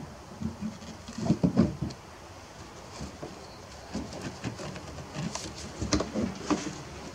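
PVC pipe and tee fittings being pushed straight onto glued stubs on a plastic 55-gallon drum: knocks, creaks and rubbing of plastic on plastic. Clusters of knocks come about a second in and again near six seconds.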